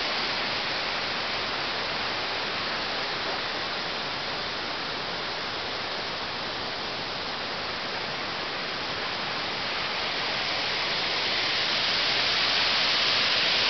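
Waterfall: a steady rush of falling water, growing louder near the end.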